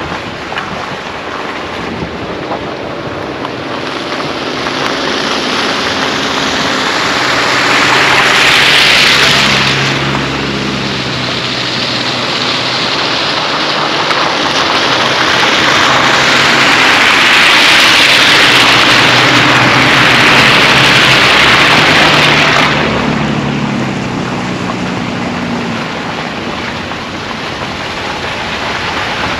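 Rushing road and wind noise from a Tesla Model Y driving on a wet, muddy dirt road: tyre noise on slush and gravel mixed with wind buffeting the microphone. It swells twice, briefly about eight seconds in and again for several seconds in the second half.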